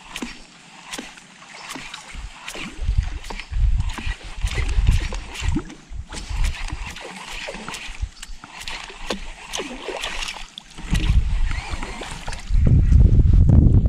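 Water splashing and sloshing around a small fishing boat, with many sharp clicks and knocks and uneven low rumbles that grow louder near the end.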